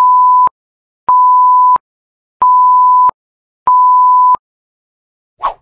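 Film-leader countdown beeps: a steady single-pitch tone about 1 kHz, sounding in even beeps of about two-thirds of a second roughly every 1.3 seconds, four in all. The first beep is already under way at the start. A short burst of noise follows about half a second before the end.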